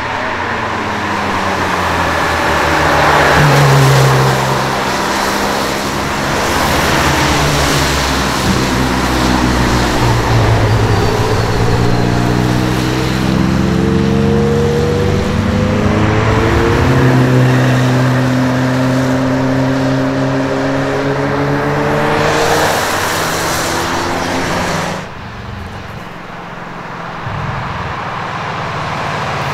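High-performance car engine accelerating hard, its pitch climbing in several stages as it pulls through the gears. The engine sound drops away suddenly about 25 seconds in.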